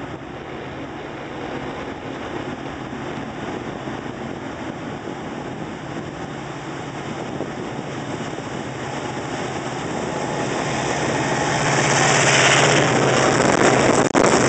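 Diesel locomotives at the head of a freight train approaching and passing directly below, engines running with a steady low hum that grows louder throughout and is loudest in the last few seconds as the units go underneath. The sound cuts out for an instant near the end.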